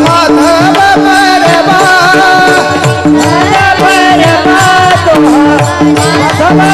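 Marathi devotional kirtan singing: a voice sings an ornamented, wavering melody of the opening panchapadi, accompanied by hand-drum strokes and steady held instrumental notes.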